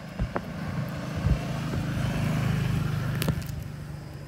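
Engine of a passing motor vehicle: a steady low hum that grows louder to the middle and fades in the last second, with a few sharp clicks over it.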